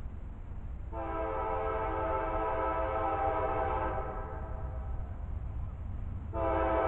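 Approaching CSX freight locomotive's air horn sounding a multi-note chord: one long blast starting about a second in and fading away over the next few seconds, then a second blast starting near the end.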